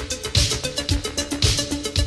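Electronic dance music with a steady kick drum about twice a second, ticking hi-hats and a repeating bass line.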